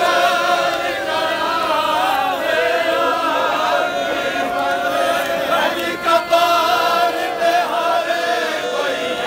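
A crowd of men chanting a noha, a Shia mourning lament for Imam Hussain, together in unison during matam.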